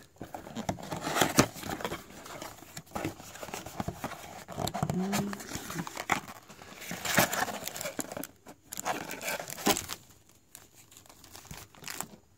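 Cardboard blaster box of trading cards being opened and emptied by hand: irregular crinkling and rustling of the paper insert and foil card packs, with small clicks and scrapes, quieter near the end.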